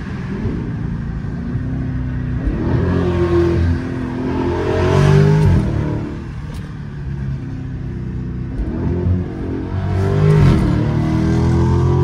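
Dodge Charger SRT 392's 6.4-litre HEMI V8 pulling hard under acceleration, heard from inside the cabin. Its revs climb and drop back at an upshift twice, near the middle and near the end.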